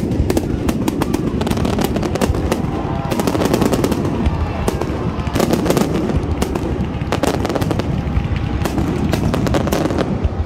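Fireworks display in a dense barrage: aerial shells bursting and crackling in a rapid, unbroken string of bangs, like machine-gun fire.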